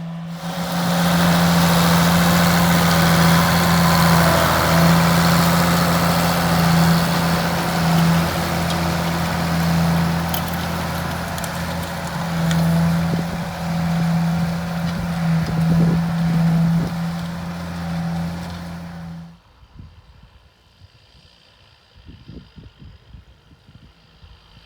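Ford TW-15 tractor's six-cylinder diesel engine running steadily while pulling a four-furrow plough, loud and with a rushing noise over it. About 19 seconds in the sound drops abruptly to a faint engine hum.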